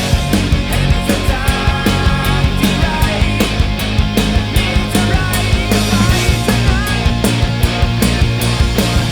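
Instrumental rock backing track with drums, bass and electric guitars keeping a steady beat, with no singing. A lead melody line with sliding notes comes in about a second and a half in.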